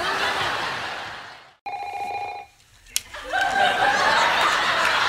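Sitcom studio-audience laughter fading out, then a telephone rings once, a short steady ring, before audience laughter rises again.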